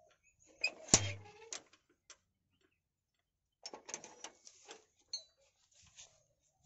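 A single sharp click about a second in, then scattered soft clicks and rustling a few seconds later.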